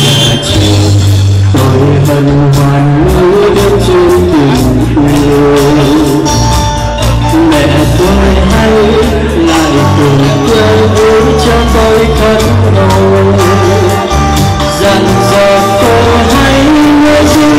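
A man singing a slow Vietnamese song into a microphone, amplified over a backing track with bass and a steady beat.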